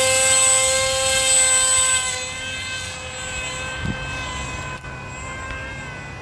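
Brushless electric motor and propeller of a radio-controlled foam plane just after a hand launch, a steady high-pitched whine that grows quieter after about two seconds as the plane flies away.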